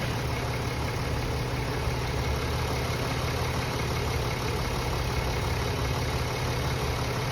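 Mercedes-Benz ML350's V6 engine idling steadily and smoothly, freshly overhauled.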